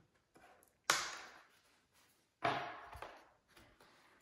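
Hands handling and pressing on a foam RC jet airframe on a table: two sudden knocks about a second and a half apart, each trailing off in about half a second, with a few faint taps in between.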